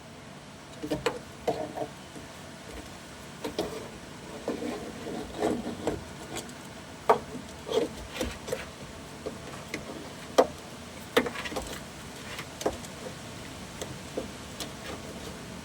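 Handling noises: irregular knocks, clicks and short scrapes as a fallen work light and tools are picked up and set back in place under the car. The sharpest knocks come about halfway through.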